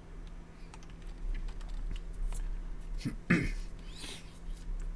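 Scattered clicks of a computer keyboard and mouse being worked, over a low steady hum.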